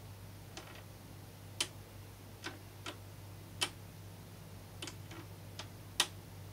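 Stylus of a Technics SL-MA1 turntable tracing a silent stretch of vinyl groove after the music stops: scattered, irregular clicks and pops of surface noise, about a dozen, over a faint low hum.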